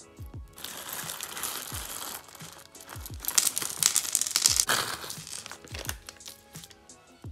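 Plastic packaging bags crinkling as small charms are handled, in two spells, the second louder, over background music with a steady beat.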